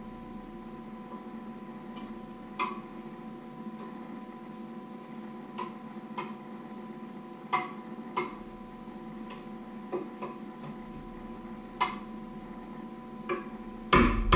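A utensil clinks against a metal mixing bowl while food is stirred: irregular sharp clicks every second or two, with a louder clatter near the end, over a steady electrical hum.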